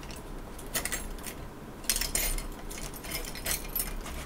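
Crochet hooks clinking and rattling against each other as someone rummages through them, in several short clusters of clinks.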